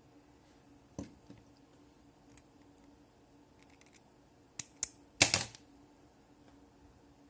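Small metal hook-tying tool being handled and set down on a desk: a light click about a second in, two sharp clicks near the middle, then a short rattling clatter, the loudest sound, as it is put down.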